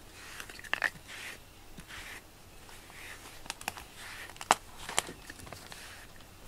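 Plastic grooming brush stroked through a cat's fur, a soft swish roughly once a second, with a few sharp clicks among the strokes, the loudest about four and a half and five seconds in.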